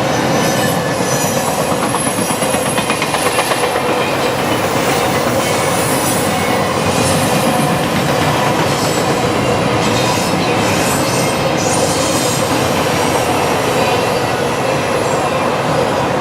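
Freight cars of a long CN train rolling past at track speed: steel wheels clattering over the rail, with brief high wheel squeals now and then.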